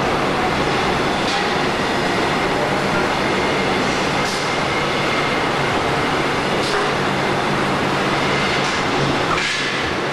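Motorcycle wheel-rim roll forming machine running as steel strip feeds through its forming rollers: a steady mechanical din over a low hum, with a few light knocks, the clearest near the end.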